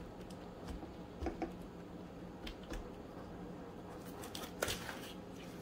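Gloved hand squishing and rubbing wet marinade into chicken pieces in a stainless steel bowl: soft wet squelches and scattered light clicks. Near the end, a short crinkly rustle as the disposable glove is peeled off.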